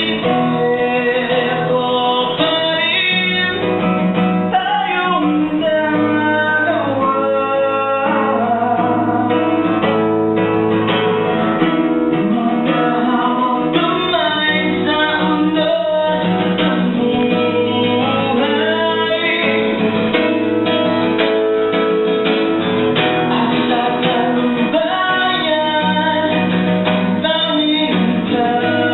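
Live acoustic music: a melody with sliding, wavering notes over a plucked-string accompaniment, playing steadily throughout.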